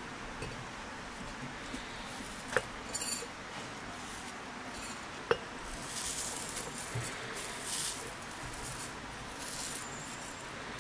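Two sharp clinks on a ceramic teapot, then dry loose tea leaves rustling and pattering as they are tipped from a small bowl into the pot.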